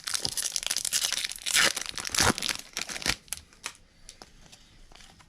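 Plastic trading-card pack wrapper crinkling and tearing open for about three seconds, loudest twice near the middle, then a few faint clicks of cards being handled.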